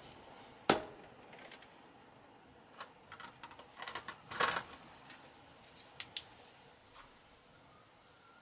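Tools and metal fork parts handled on a workbench: scattered clicks and knocks, with a sharp knock about a second in, a busy cluster about four seconds in, and two quick clicks about six seconds in.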